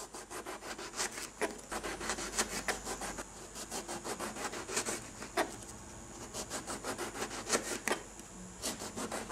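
Kitchen knife slicing an eggplant into rounds on a plastic cutting board: a steady run of short sawing strokes through the flesh and skin, with light taps as the blade meets the board.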